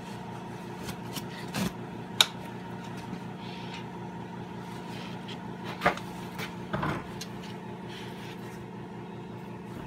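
Hand tools working a bolt on a dirt bike's engine side, giving a few sharp metallic clicks and knocks, the loudest about two seconds in and about six seconds in, over a steady background hum.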